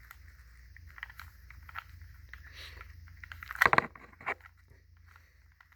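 Plastic Rubik's cube being turned by hand: small clicks and scrapes of the layers rotating, with a louder clack just under four seconds in and another shortly after.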